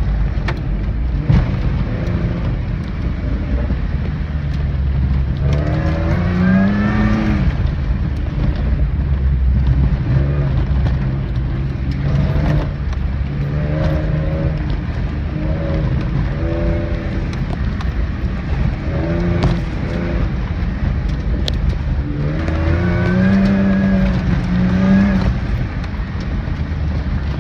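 A vehicle's engine running in gear while it drives slowly over a rough dirt track, heard from inside the cab under a steady rumble of road and tyre noise. The engine note rises and falls several times as it revs up and eases off.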